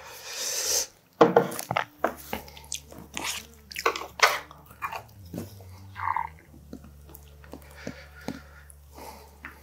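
Close-miked eating: a person chewing and biting food with wet, crunchy mouth sounds and sharp clicks. It opens with a short rush of noise lasting under a second.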